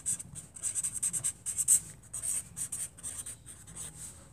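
Quick, irregular scratching strokes, with one louder scrape about two seconds in.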